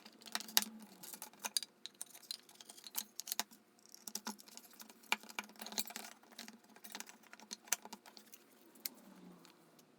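Irregular light clicks and taps of small hard objects, several a second, with short pauses between clusters.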